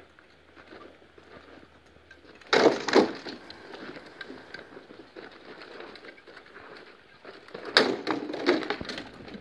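Rattan swords striking shields and armour in SCA heavy-combat sparring: two sharp hits about two and a half seconds in, then a loud flurry of knocks near the end.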